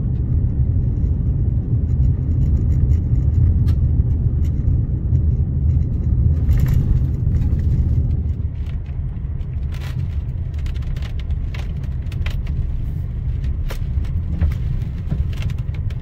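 Chevy Colorado ZR2 pickup driving on a gravel road, heard from inside the cab: a steady low rumble of tyres and road noise, with scattered sharp ticks of stones, more of them in the second half.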